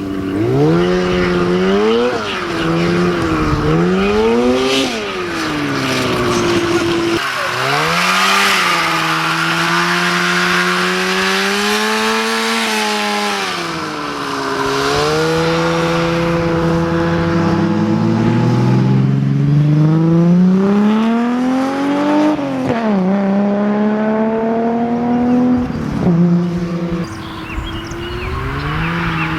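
Two-stroke snowmobile engine in a go-kart running hard under load, its pitch repeatedly climbing and falling as the throttle is opened and eased off, with a few sudden drops when the throttle is let off. The builder suspects it is running lean, starving for fuel at high revs.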